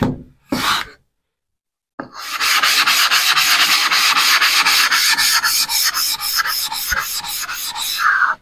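Diamond plate rubbed back and forth over a King 300-grit water stone to flatten it: a short stroke near the start, a second's gap, then a steady run of quick strokes, about four or five a second.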